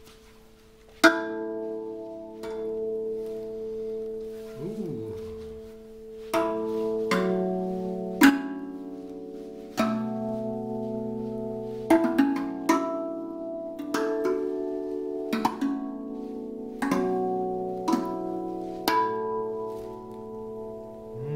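RAV Vast steel tongue drum in B Celtic with a double ding, struck by hand. About a dozen single notes are played one at a time from about a second in, and each rings on long and overlaps with the next into a sustained chord.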